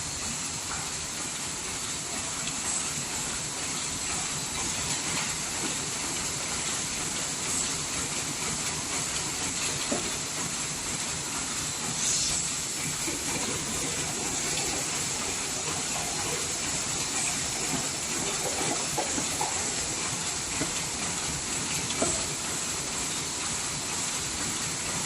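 SM-100 double wall paper cup sleeve machine running steadily: continuous machine noise with a strong hiss, and a few sharper clicks.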